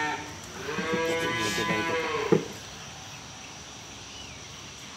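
Dairy cattle mooing: one long, drawn-out moo of about a second and a half, cut off by a sharp knock.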